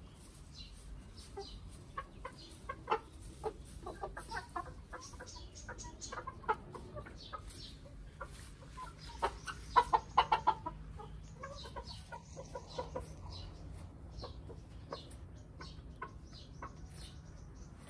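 Domestic hens and a rooster clucking, a scatter of short calls with a louder run of quick clucks about halfway through.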